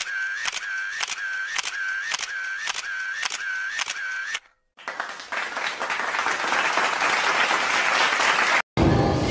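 Edited-in sound effect: a camera-shutter-like click with a short bent tone, repeated about two and a half times a second for about four seconds. After a brief gap comes a swelling hiss of noise that cuts off suddenly near the end.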